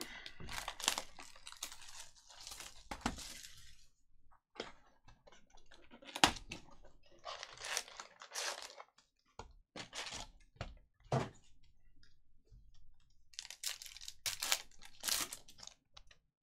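Plastic wrapping and trading-card packs being torn open and crinkled by hand, in several spells of rustling and ripping with small sharp clicks between.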